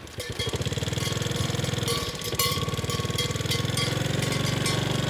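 Small motorcycle engine running at low speed close to the microphone, its level picking up just after the start and then holding steady.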